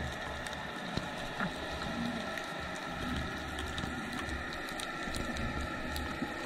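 Underwater ambience heard through an action camera's waterproof housing: a muffled, steady rush with a low rumble, faint steady hum and scattered faint clicks.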